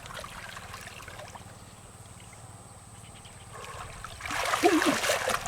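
Water trickling in a shallow, almost bailed-out pond, then louder splashing in the water from about four seconds in.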